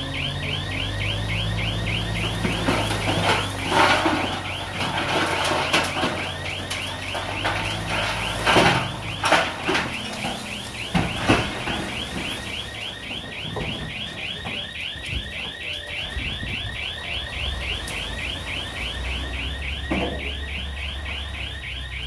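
A heavy machine's electronic warning alarm chirps in quick, even sweeps, about three or four a second, over a diesel engine running. Several sharp metallic clanks come in the first half.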